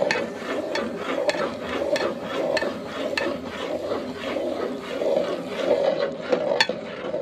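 Metal spoon stirring semolina into hot liquid in a metal pot, clicking against the pot wall about every half second over a steady rushing background.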